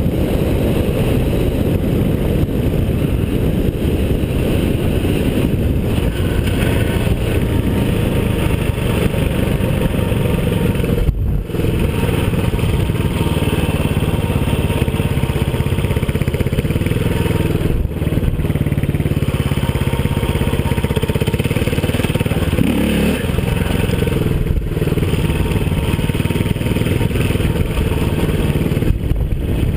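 KTM enduro motorcycle's single-cylinder four-stroke engine running at speed, heard from on the bike with wind rushing over the microphone. The sound dips briefly four times, about every six to seven seconds.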